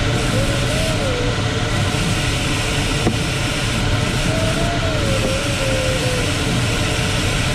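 Steady rush of air over a Ventus 2cxT sailplane's canopy in flight. Over it, a thin electronic tone from the glider's audio variometer wavers up and down in pitch twice, for a second or two each time.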